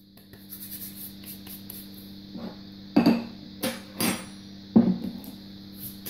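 Four sharp clinks and knocks about three to five seconds in: a ceramic lid going back onto a ceramic salt crock and the crock being set down on the table, over a steady low hum.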